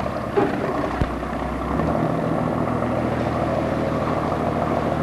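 A boat engine running steadily. About two seconds in its note steps up and gets slightly louder, and it holds there. There is a single sharp knock about one second in.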